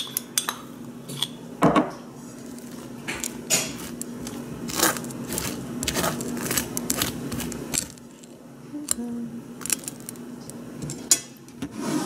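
Table knife spreading black sesame paste over a slice of toast on a plate: irregular scrapes of the blade across the bread and sharp clicks of the knife against the plate, over a faint low steady hum.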